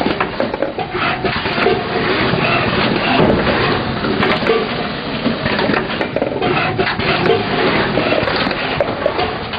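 Pot transplanting machine running: a steady, dense clatter of rattles and knocks from its conveyor and mechanism as soil-filled pots move through it.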